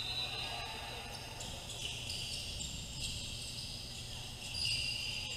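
Gym sounds during a basketball game: high sneaker squeaks on the court floor, several overlapping and coming and going, over faint crowd chatter and a low hum.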